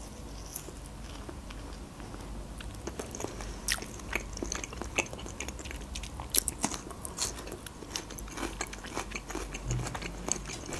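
Close-miked chewing and biting of mackerel: scattered wet mouth smacks and small crunches at an irregular pace.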